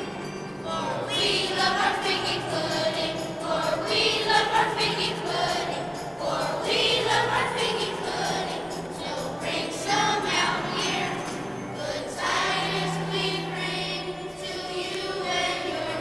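Children's choir of fifth graders singing together, a continuous song with held notes.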